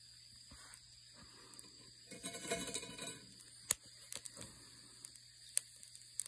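Chestnuts being roasted: scattered small clicks and crackles, with a brief scraping rustle about two seconds in. A sharp click a little later is the loudest sound.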